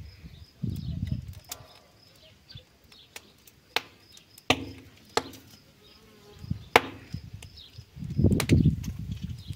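A piece of card flapped to fan a charcoal grill: several sharp taps and low gusty whooshes, the loudest near the end. Behind it a faint, steady, high insect-like buzz.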